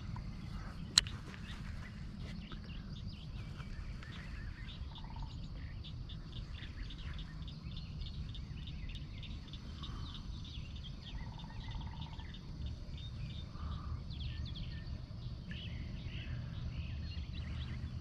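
Small birds chirping and calling over a low steady rumble, with one sharp click about a second in.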